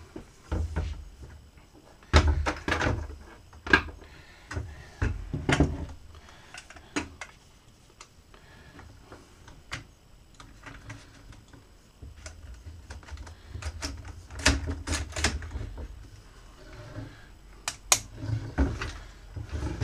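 Sharp clicks, taps and knocks of Minelab Equinox 800 metal-detector shaft parts being handled and fitted together on a wooden bench. They come in two busy spells, with a quieter stretch in the middle.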